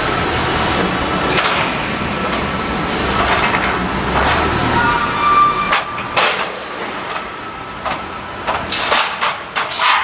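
Guardrail forming machine running with a steady rumble, then a series of sharp metal clanks in the second half, several in quick succession near the end.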